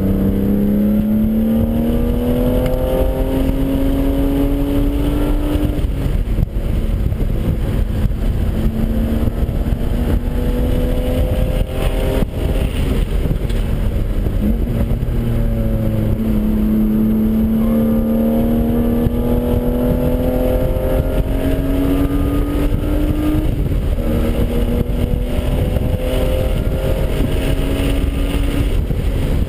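BMW E36's engine heard from inside the cabin under hard acceleration on a race track, its pitch climbing in long sweeps that break off and restart lower several times, over steady wind and road noise.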